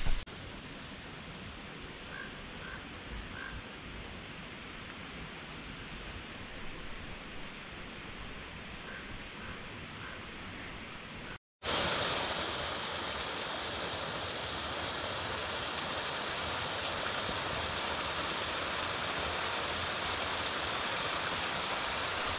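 Snowmelt stream cascading over boulders in a rocky gully: a steady rush of water. It is quieter for the first half, with a few faint high chirps, then cuts out briefly and comes back louder and brighter.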